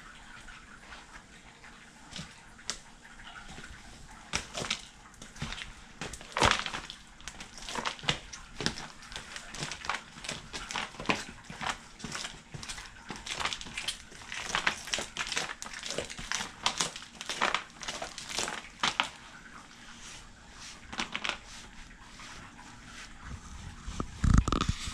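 Leather Dehner boots stomping and grinding into soft ice cream on a sheet of paper mailer: irregular squelching thuds and scuffs, many in quick succession, thinning out later, with a few louder knocks near the end.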